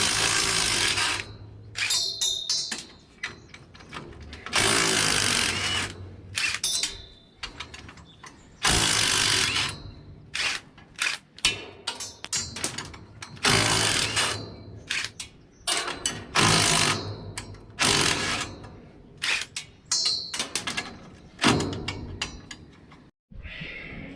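Handheld power tool running in about seven short bursts of a second or so, with clicks and knocks between them, as fasteners are worked off a baler.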